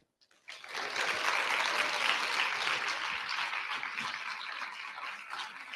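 Audience applauding. The clapping breaks out about half a second in and slowly dies down toward the end.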